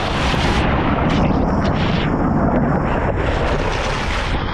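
Wind buffeting the microphone over the low rumble of a moving safari vehicle: a loud, steady rushing noise.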